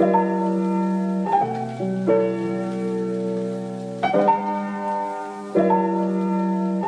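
Instrumental break of a sped-up pop ballad: sustained keyboard chords, changing every second or so, with no vocals.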